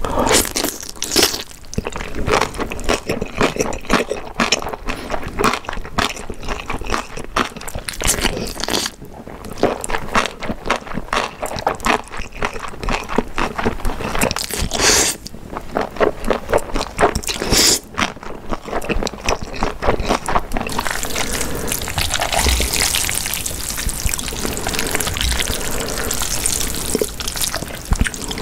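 Close-miked mukbang eating sounds: wet chewing, biting and slurping, many quick smacks and clicks, turning into a steadier hissing wet sound over the last several seconds.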